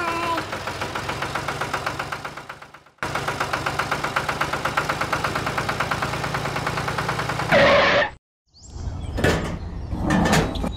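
Steady chugging engine sound of a miniature tractor, about seven beats a second over a low hum, cut off briefly about three seconds in and again near the end. In the last couple of seconds come small clicks and knocks of hands handling the model trolley.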